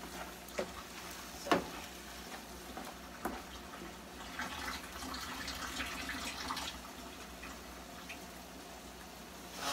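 Spatula stirring ground beef in a skillet, with a couple of sharp knocks against the pan, then a soft hiss for a few seconds in the middle.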